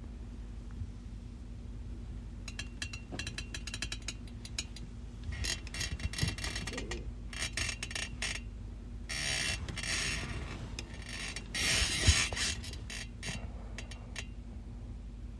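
Bedclothes rustling and shifting as a sleeper tosses and turns, with scattered clicks and crackles and a soft thump about twelve seconds in, over a steady low hum.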